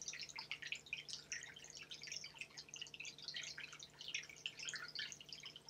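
Faint, steady trickle of dripping water, a dense patter of tiny drops, with a low steady hum beneath it.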